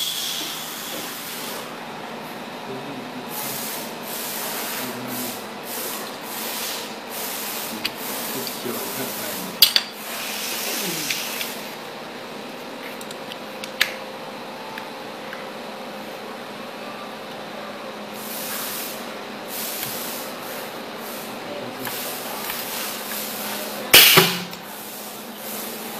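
Desktop pneumatic hot stamping machine being worked: bursts of hissing compressed air and a few sharp metal clanks over a steady hum. The loudest clank and hiss comes near the end.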